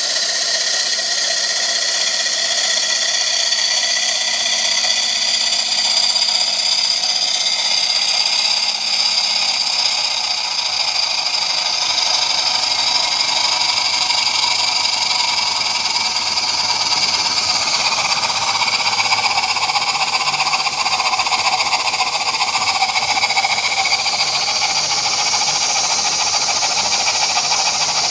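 Cotswold Heritage Perseus model steam engine running on steam: a steady hiss with high, even tones in it. About 18 seconds in, the hiss becomes fuller and lower.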